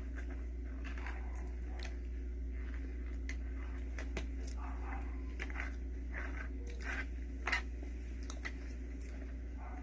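Wet mouth sounds of someone eating soft cheesecake: scattered lip smacks and small clicks of chewing over a steady low hum, with one sharper smack about seven and a half seconds in.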